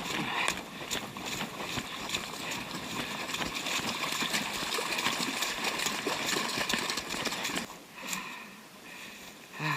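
Running footsteps on a wet, muddy trail: a quick run of steps and splashes that stops about eight seconds in.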